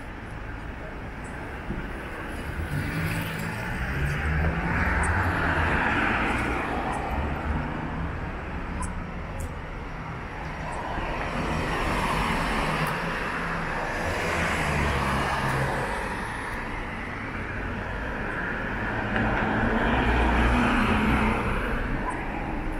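Road traffic on a city street: cars pass one after another, each rising and then fading, with tyre noise over a low engine hum.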